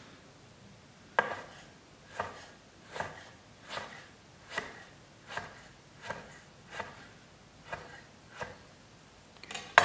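Chef's knife slicing an avocado into strips on a wooden cutting board. There are about ten even cuts, each ending in a knock of the blade on the board, a little under one a second. A louder, sharper knock comes right at the end.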